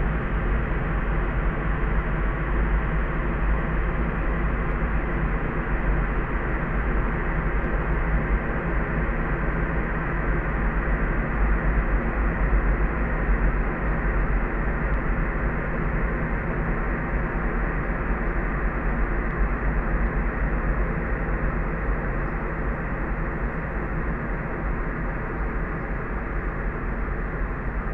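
Steady, soft pink noise layered for sleep, heaviest in the deep low end and cut off above the mid-highs so it carries no hiss. It runs on evenly without any change or event.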